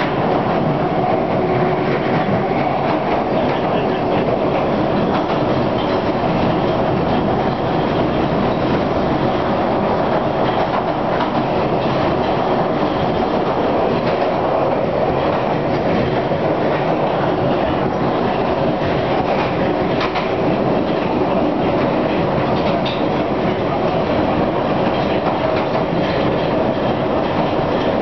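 London Underground 1967 Stock electric tube train running at speed through a tunnel, heard from inside the carriage: a loud, steady running noise of wheels on rails, with a few faint clicks.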